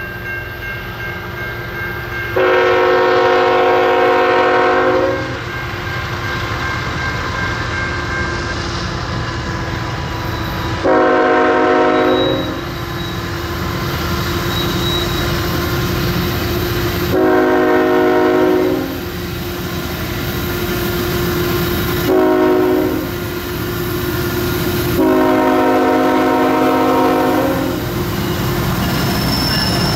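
Multi-chime air horn of the lead diesel locomotives on a loaded coal train, sounded in five blasts (long, short, long, short, long), warning at a grade crossing. Between blasts the locomotives' diesel engines and the train rumble steadily, growing louder as they approach.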